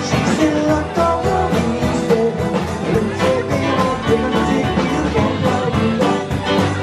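Live acoustic rock band playing in the room: strummed guitars over a steady beat, about four strokes a second.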